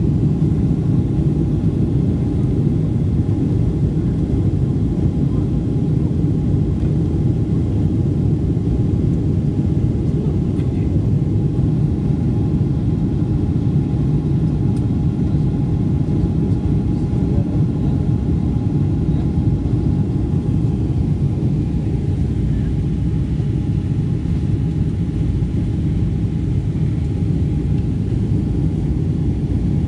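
Cabin noise inside a Boeing 777-200ER shortly after takeoff: the steady low rumble of the engines and rushing air, with a faint steady whine above it.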